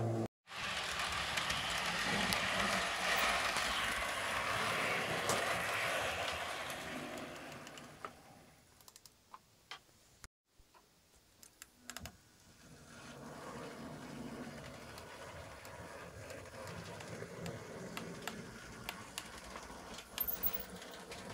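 H0-scale model trains running on the track: a steady whirring rush with light rapid clicking of wheels over rail joints and turnouts. It is loudest for the first several seconds, fades, and returns quieter with scattered clicks.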